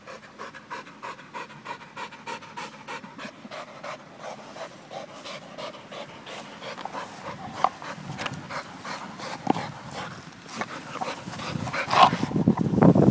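Pit bull–type dog panting hard after playing ball, about four quick pants a second. Near the end there is louder scuffling and bumping close to the microphone.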